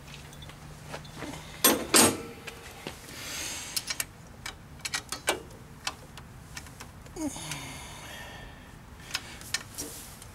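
Irregular metallic clicks and knocks from a 10 mm ratchet and hands working the bolts of a diesel generator's oil filter cover, with two louder clanks about two seconds in.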